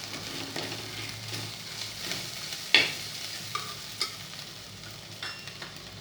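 Onions and sun-dried toor dal sandge frying in oil in a pan while being stirred: a steady sizzle with the spoon clicking against the pan now and then, loudest a little under three seconds in.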